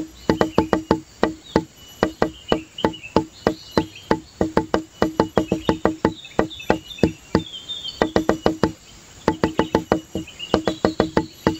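Background music track: quick runs of hollow wood-block-like notes on one pitch, about four or five a second with brief gaps, with high chirping twitters over the top.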